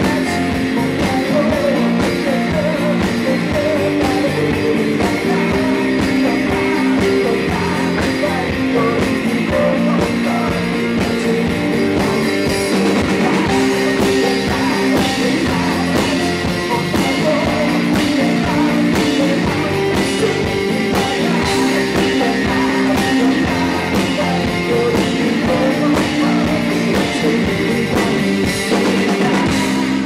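Live rock band playing: strummed acoustic guitar, electric guitar and drum kit keeping a steady beat, with a male voice singing over them.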